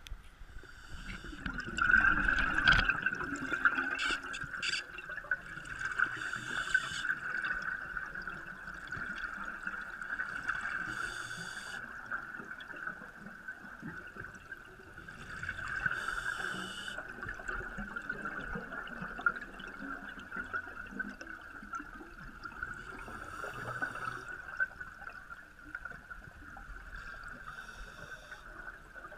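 Underwater sound of scuba diving: bubbles from a diver's exhaled breath rush up in bursts every four to six seconds, over a steady high hum.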